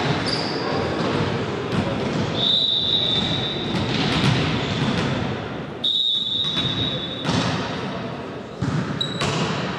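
Echoing sports-hall din between volleyball rallies: mixed voices and chatter with scattered thuds of a ball bouncing on the floor. Two long, steady high-pitched tones stand out, about two and a half and six seconds in.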